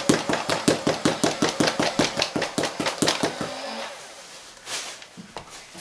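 Nerf Hyperfire motorized flywheel dart blaster firing full auto, a rapid even clatter of shots at about seven a second, emptying its 25-dart drum magazine; it stops about three and a half seconds in.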